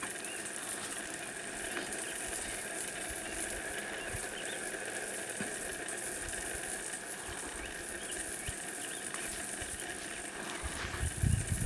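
Honey bees buzzing as they fly in and out of the hive entrance: a steady, faint hum. Near the end come a few low bumps on the microphone.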